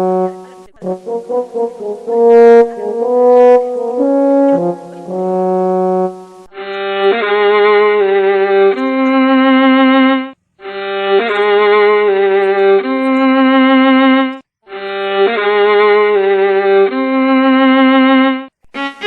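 Background music: a slow melody of held notes in a brass-like tone. From about six seconds in, the same short phrase repeats three times with brief breaks between.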